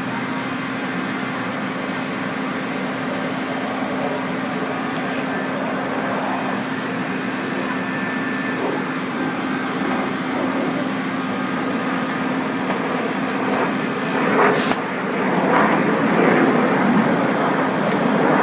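An engine running steadily with a constant low hum, at a vehicle extrication. About fourteen and a half seconds in there is a short sharp snap, and after it the noise grows louder and rougher.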